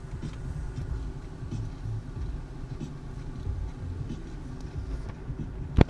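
Low steady rumble inside a car cabin, with one sharp knock near the end.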